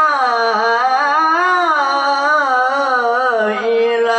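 A man's voice chanting Qur'an recitation in a melodic tilawah style. He holds one long ornamented vowel, and its pitch winds up and down without a break.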